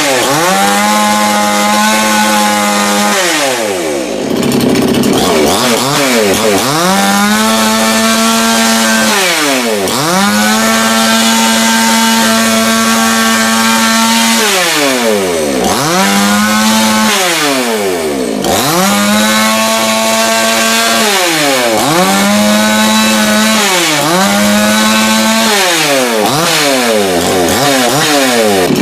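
Two-stroke chainsaw engine being revved over and over, about seven times. Each time it climbs to full throttle, holds a high steady pitch for one to four seconds, then drops back down.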